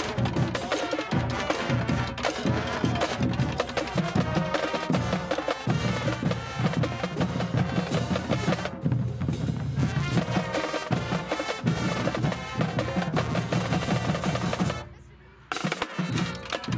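A high school marching band drumline plays a fast cadence on snare drums, tenor drums and bass drums. The snares drop out briefly around the middle while the low drums carry on. Near the end the whole line stops dead for about half a second, then comes back in.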